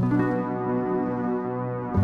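Background music: soft sustained keyboard chords, ambient in style.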